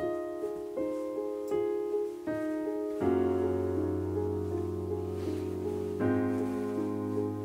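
Soft background piano music: evenly paced single notes, joined about three seconds in by deeper held chords that fill it out.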